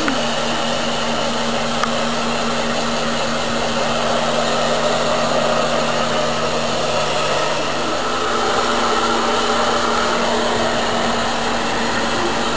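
Handheld hair dryer running steadily: a constant rush of air with a low steady hum. A lower hum drops out about eight seconds in.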